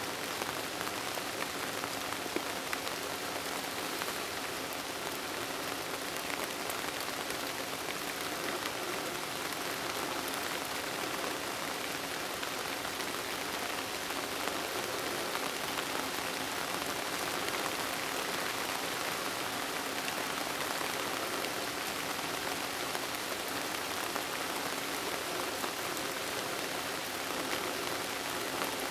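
Steady rain falling on the forest foliage: an even hiss sprinkled with faint drop ticks.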